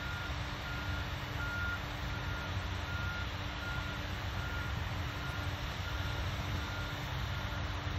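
A vehicle's reversing alarm beeping at an even pace, about three beeps every two seconds, over a steady low rumble and hum.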